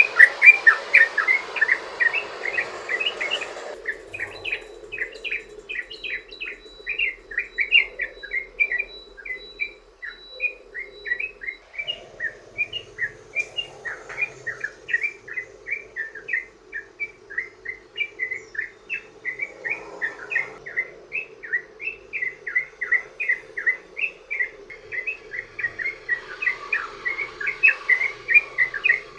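Yellow-vented bulbul (trucukan) singing a long, unbroken 'ropel' run of rapid short chattering notes, a several-notes-a-second string kept up without pause. A hiss under the first few seconds cuts off suddenly.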